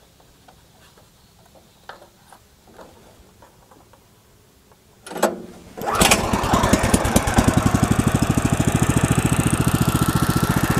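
Small gasoline engine of a Woodland Mills HM126 portable bandsaw mill being started: a few faint clicks, a brief cough about five seconds in, then it catches a moment later and runs steadily, left to warm up before the cut.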